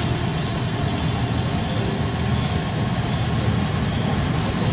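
Steady outdoor background noise, a low rumble with hiss, with no distinct events; a faint high steady whine comes in near the end.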